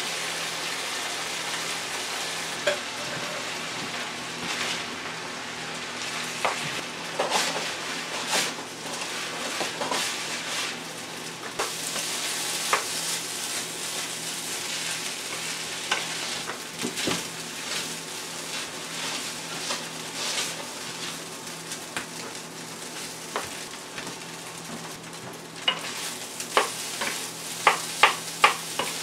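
Rice and beans sizzling in a hot frying pan as they are stirred with a wooden spoon. The spoon scrapes and knocks against the pan, and the knocks come quicker near the end.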